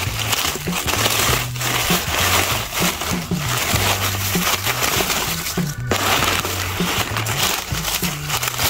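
Dry banana leaves crunching and rustling as metal tongs push and lift them, with a brief pause about six seconds in. Background music with a repeating bass line plays underneath.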